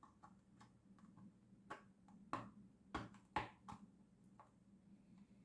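A few faint, sharp taps and pops, five or so spaced irregularly through the middle: the cover over a bowl of rice being poked with small holes to let steam escape in the microwave.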